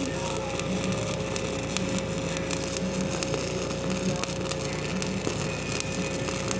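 Electric arc welding on steel plate: a continuous sizzling crackle with frequent sharp pops over a steady hum.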